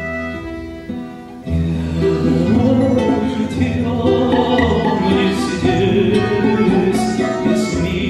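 Live acoustic accompaniment of violin, button accordion and plucked double bass; about a second and a half in it swells and a male tenor voice comes in singing a slow Russian folk-style song with vibrato.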